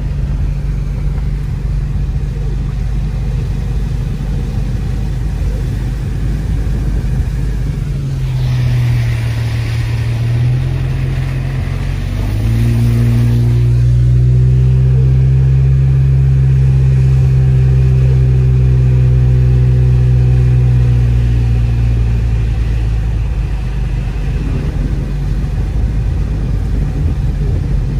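Car engine and road noise heard from inside the moving car. A steady engine hum dips briefly, then rises in pitch and grows louder about 12 seconds in as the car accelerates. It holds there for several seconds and eases off a little after 20 seconds. A hissing rush is heard for a few seconds just before the rise.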